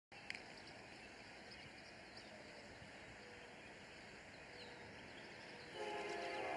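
Faint outdoor background with a few high chirps; about five and a half seconds in, a distant freight locomotive's air horn starts sounding, a steady chord of several tones that grows louder.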